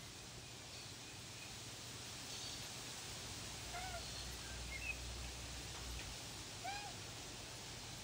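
Birds calling faintly over steady outdoor background noise: a few short, arched notes about four seconds in and again near seven seconds, with some fainter high chirps between them.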